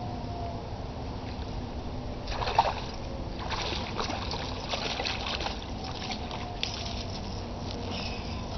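A hooked bass splashing at the surface with scattered crackling strokes as it is reeled in to the bank and lifted from the water, over a steady low background rumble. The splashing comes in a burst about two seconds in and then in a run of short strokes for several seconds.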